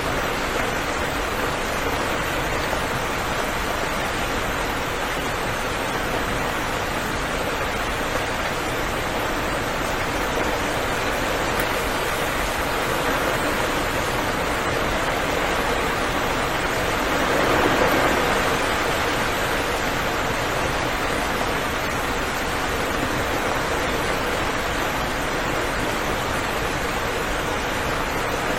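Steady rain falling, a dense even hiss that swells briefly louder a little past the middle.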